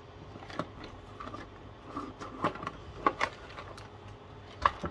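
Clear plastic storage boxes of marker pens being handled and set down on a work mat: a scattering of short plastic clicks and knocks, the loudest about three seconds in and just before the end.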